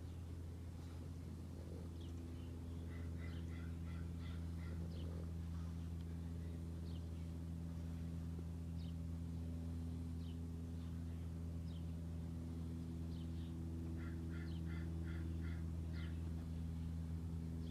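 Small birds chirping, including two quick runs of about six notes each, over a steady low hum.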